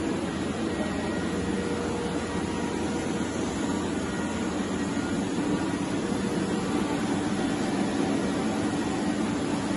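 Steady machinery and ventilation hum in a machine shop: an even rushing drone with a few faint steady tones in it.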